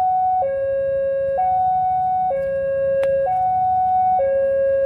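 Railway level crossing warning alarm sounding: an electronic two-tone signal alternating between a higher and a lower note about once a second, the warning that a train is approaching and the crossing is closed.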